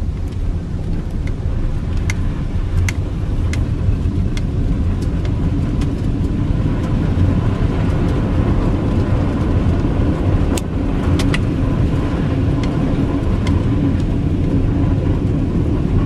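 Two-wheel-drive pickup truck driving on a snow-covered road, heard from inside the cab: a steady low rumble of engine and tyres, with scattered light clicks.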